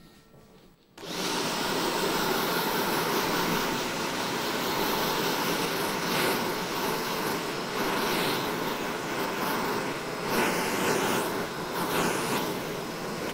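Hair dryer switched on about a second in and blowing steadily, drying a section of freshly cut wet hair.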